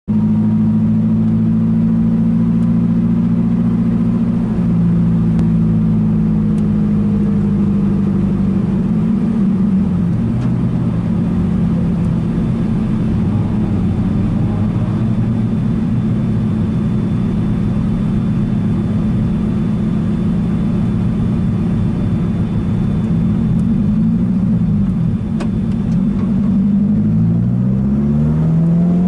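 Lotus race car's engine heard from inside the cockpit, running at low revs as the car rolls slowly toward the starting grid, with the revs rising near the end.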